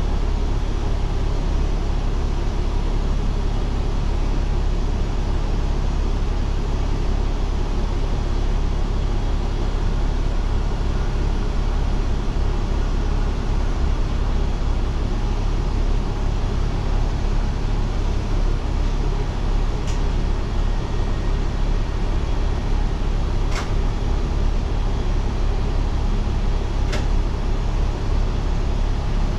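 Diesel railcar running along the line, heard from inside the car as a steady low rumble. A few sharp clicks come in the last third.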